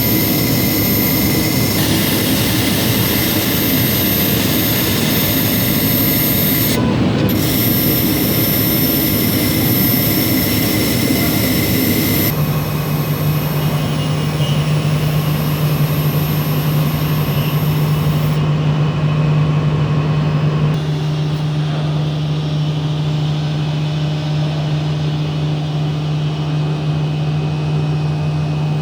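Steady running noise of a CNC laser machine and its fans. It changes abruptly about twelve seconds in, where a strong low hum takes over, and shifts again around twenty seconds.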